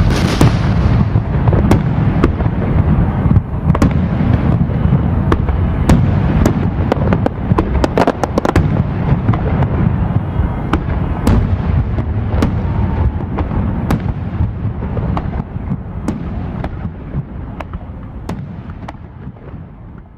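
Aerial fireworks display: a dense run of bangs and crackles from bursting shells over a continuous low rumble, thinning out and fading away over the last few seconds as the display ends.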